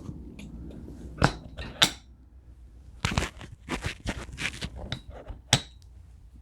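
Steel washers and small hardware clinking and scraping as they are fitted onto a wheel axle: a few sharp metallic clicks, one just after a second in, another about half a second later and one near the end, with a stretch of rattling in between.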